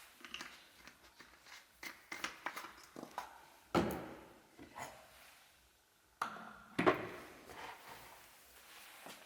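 Foam cannon parts and packaging being handled: a string of light clicks and taps, with two louder knocks about four and seven seconds in.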